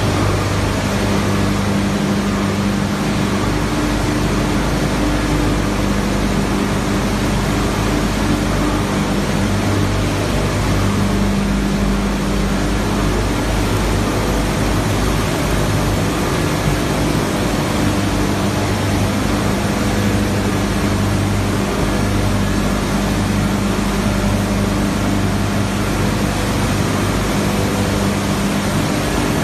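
PE/PP plastic film washing line running: a loud, steady machinery noise with a low hum that fades in and out, and water churning in the washing tanks.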